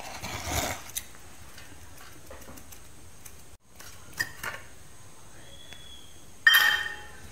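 Stainless steel idli cups scraping and tapping against a steel plate as steamed idlis are knocked out of them, with a few light clicks and one louder metallic clank that rings briefly near the end.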